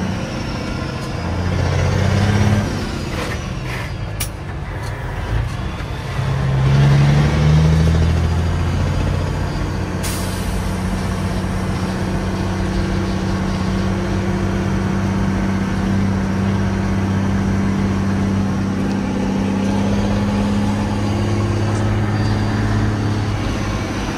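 Peterbilt 379 semi-truck's diesel engine heard from inside the cab while driving. Its note rises and falls over the first several seconds, then holds steady.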